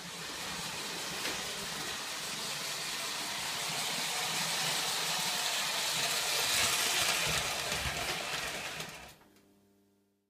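Lionel O-gauge toy steam locomotive running on three-rail tinplate track: a steady whirring rumble with hissy wheel-on-rail noise. It grows a little louder, then fades out about nine seconds in.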